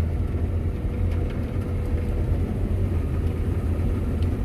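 Farm machinery engine running at a steady low drone, with a faint steady whine over it.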